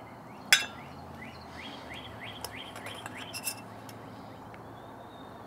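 A fork clinks sharply on a metal bowl, with a few lighter clinks later. Meanwhile a songbird repeats a short rising chirp, about four a second, for about two seconds.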